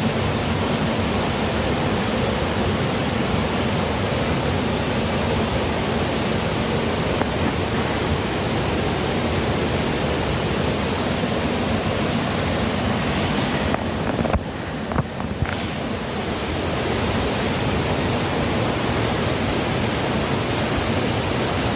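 Waterfall: a steady, dense rush of falling water, with a few knocks and a brief dip in level about two-thirds of the way through.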